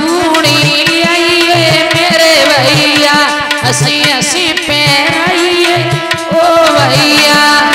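Live Indian folk wedding song (bhat geet): a melodic singing voice over held accompanying tones and a steady hand-drum beat.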